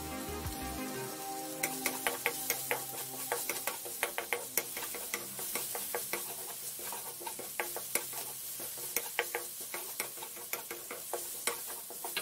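Spatula scraping and knocking irregularly against a wok as sliced shallots, garlic and aromatics are stir-fried in a little oil, with a faint sizzle. Soft background music runs under it, plainest in the first couple of seconds.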